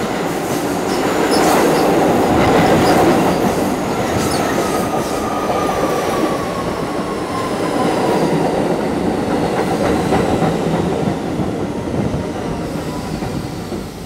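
New York City subway train pulling into an open-air station and sliding past the platform, its wheels clacking over the rail joints. A thin whine falls slowly in pitch as the train slows.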